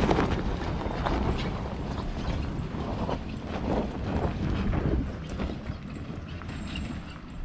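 A four-wheel drive towing a trailer crawls over a rough dirt track: irregular knocks, clunks and creaks over a steady low rumble of engine and tyres.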